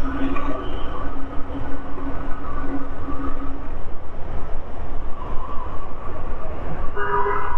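Motorcycle riding noise at highway speed: wind rushing over the bike-mounted camera's microphone, over engine and traffic noise. A steady hum runs through the first three and a half seconds, and a brief chord of steady tones sounds near the end.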